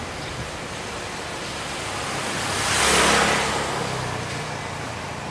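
A motor vehicle passes close by on the street, its engine and tyre noise rising to a peak about three seconds in and then fading, over steady street background.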